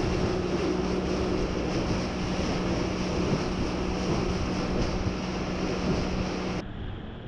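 Outboard motor running at speed on a bass boat, a steady hum under the rush of water along the hull and wind buffeting the microphone. A little before the end the sound suddenly drops and turns duller.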